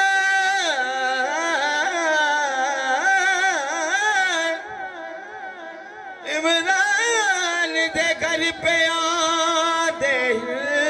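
A man sings long, wavering, melismatic lines of a devotional Punjabi song into a microphone through a PA. The singing dips quieter for about a second and a half around the middle, then resumes, over a steady held tone.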